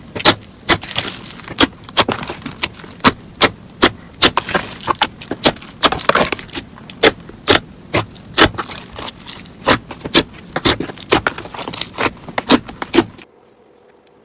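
Slime being squeezed and worked by hand, giving irregular sharp pops and crackles, about two or three a second, which stop abruptly near the end.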